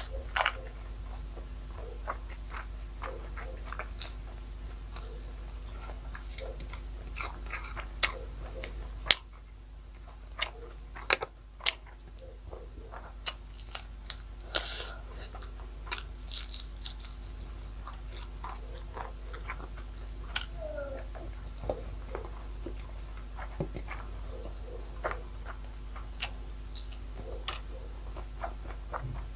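A person eating close to the microphone: a bite into a carrot piece about half a second in, then chewing with scattered clicking mouth sounds. A faint steady hum sits underneath.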